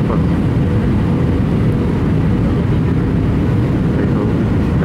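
Steady low rumble of an Airbus A320's engines and airflow heard inside the passenger cabin during the descent for landing, with a faint steady hum.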